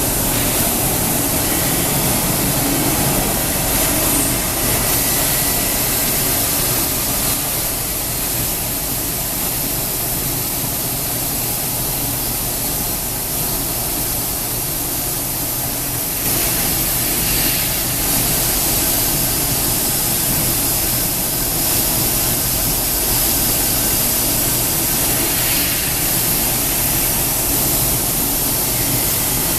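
Komo VR 1005TT CNC router running: a loud, steady whooshing machine noise with a faint thin whine at times, getting slightly louder about halfway through.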